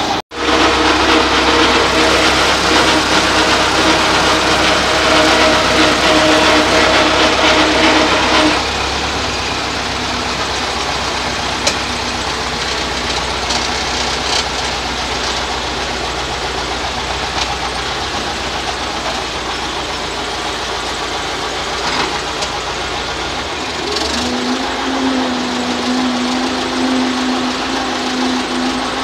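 YuMZ-6 tractor's four-cylinder diesel engine running under way, heard from inside the cab. About eight seconds in the sound drops in level, and near the end a steady hum sets in.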